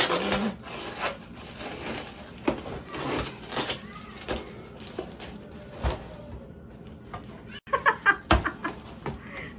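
A cardboard shipping box and its packing being handled and pulled open: uneven rustling, scraping and scattered knocks, with a louder cluster of sharp clicks and short squeaks about eight seconds in.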